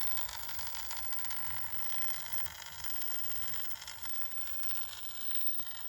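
ParkSafe 24 V 3000 W inverter with its cover off, buzzing steadily while powering a 150 W lamp. The owner finds the buzz a bit loud and rough and is unsure whether it is normal for a nine-year-old unit.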